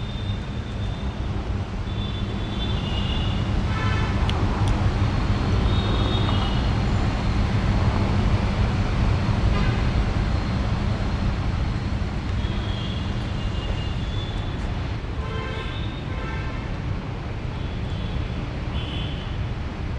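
Steady low rumble of road traffic with a constant low hum, swelling louder through the middle and easing off again. Short high chirps come and go over it.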